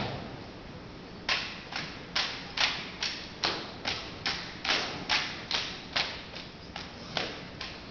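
Drill rifles being handled in a rhythmic exhibition-drill routine: sharp slaps and knocks of hands on rifles, echoing in a gymnasium. One loud hit comes first, then after a pause of over a second the strikes come steadily, about two to three a second.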